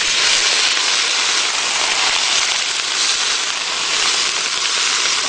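Chicken and vegetables sizzling in a hot wok as the garlic sauce goes in, a loud steady hiss.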